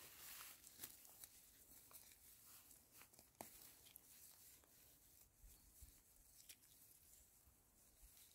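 Near silence with faint, scattered rustles and small clicks, as of hands picking mushrooms among the leaf litter.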